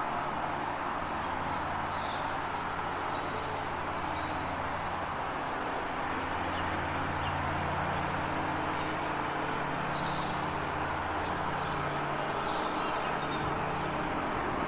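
Small birds chirping in quick high twitters, in two spells: through the first five seconds or so, and again from about the middle to near the end. Under them runs a steady background hiss with a low hum.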